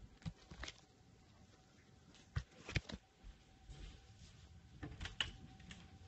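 Faint, steady single-tone wail of a distant Federal Signal 2001 electromechanical tornado warning siren, fading out for a moment midway. Louder clicks and rustles from something handled close by sound over it.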